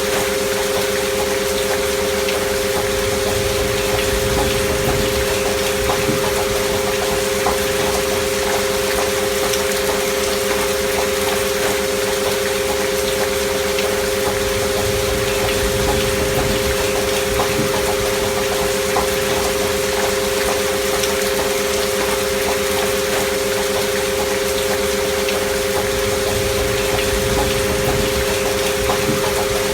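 Two steady pure tones held without a break, a binaural frequency-music drone, over a continuous recording of gentle rain with fine pattering.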